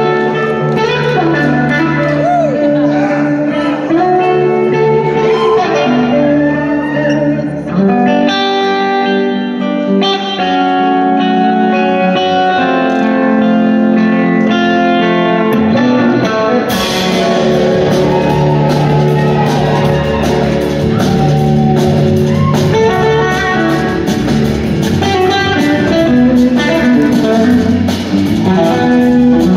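Live rock band playing an instrumental passage: an electric guitar lead with gliding, sliding notes over organ, bass and drums. About two-thirds of the way through, the drums and cymbals come in harder.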